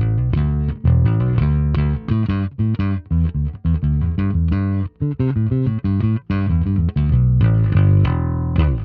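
Electric bass with Righteous Sound split-P pickups played fingerstyle through an Ampeg SVT amp simulation: a busy bass line of plucked notes in quick succession, with short breaks between phrases.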